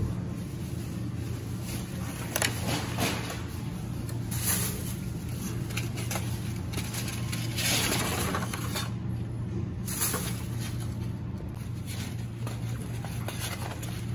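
Steady low hum of supermarket background with a few light clicks, and a brief plastic rustle about eight seconds in, around an open recycling bin lined with a plastic bag.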